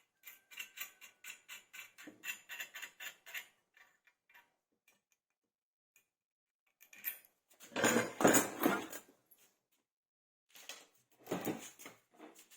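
Hand filing or rasping in quick even strokes, about five a second, which stop after roughly three seconds. Two louder scraping, handling noises follow in the second half.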